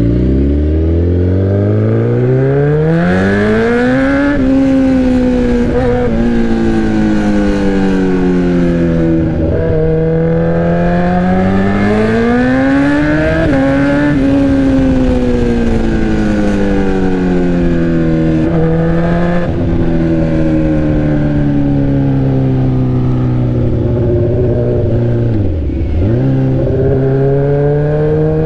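Straight-piped sport bike engine running loud under way, its pitch climbing as the bike accelerates over the first few seconds, easing off, and climbing again around twelve to fourteen seconds in. It then sinks slowly for about ten seconds, drops sharply and briefly near the end, and starts rising again.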